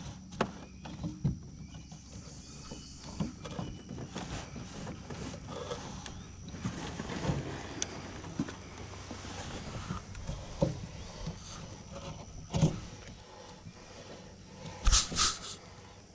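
Small electric trolling motor humming steadily as the jon boat moves, with scattered knocks against the metal hull. Near the end come a few loud clattering knocks at the boat's side.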